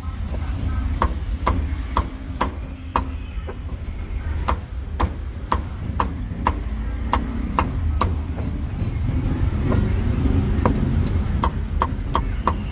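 A cleaver chopping roast meat on a chopping block: sharp, even knocks about two a second, quickening near the end, over a steady low rumble.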